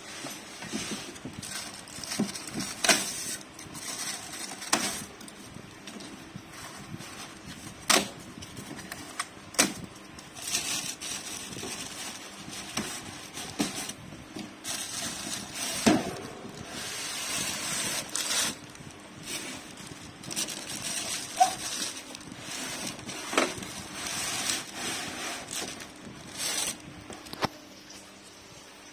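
Packing being pulled from a fan's cardboard box: polystyrene foam blocks scraping and knocking against the cardboard, with plastic wrap rustling. There are irregular sharp knocks between stretches of rustling.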